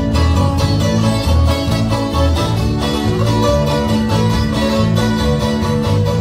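Live dance band playing an instrumental passage with a steady, repeating bass beat and no singing.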